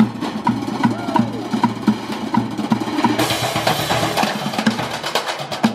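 Percussion music with a steady drum beat, a little under three hits a second, turning busier and brighter with cymbal-like hiss from about three seconds in.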